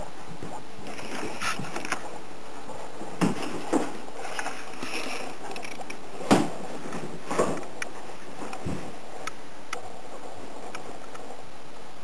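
Scottish terrier scrabbling about on a cushioned bowl chair: rustling of the cushion with a few dull thumps, two about three to four seconds in, the loudest about six seconds in, and another soon after.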